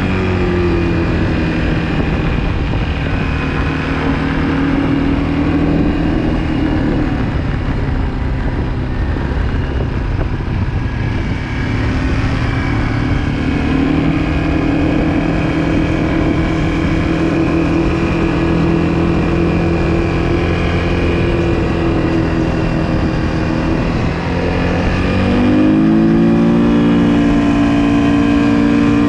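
Quad bike (ATV) engine running under throttle across sand dunes, its pitch falling and rising as the rider lets off and opens up again. Near the end the revs climb sharply.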